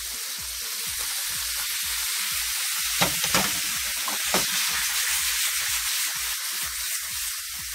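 Saltfish and vegetables sizzling steadily in a frying pan as boiled ackee is tipped in from a pot. A few sharp clicks and knocks sound around the middle.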